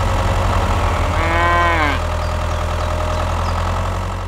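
Steady low engine hum with a single drawn-out animal call about a second in, its pitch rising and then falling, in the manner of a cow's moo.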